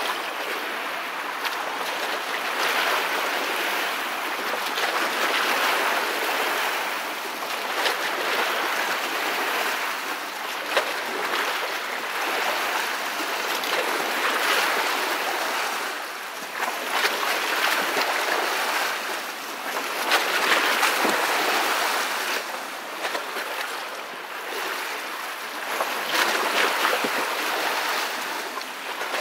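Wake waves from a fast, loaded tanker barge washing and splashing in the canal, swelling and easing every few seconds.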